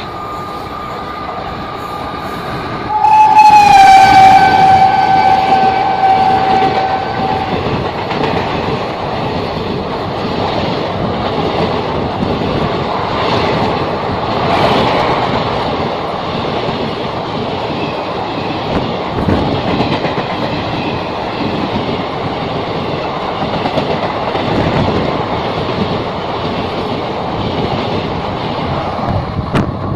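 Electric locomotive horn (WAP4) sounding one long blast of about four seconds, its pitch dropping slightly as the locomotive passes. It is followed by the steady rush and clatter of passenger coaches running through at speed.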